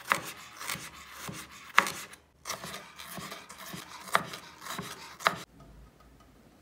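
Chef's knife cutting thin slices of raw potato into strips on a wooden cutting board: uneven strokes of the blade through the potato, with sharp knocks each time the edge hits the board. The chopping stops suddenly about five and a half seconds in.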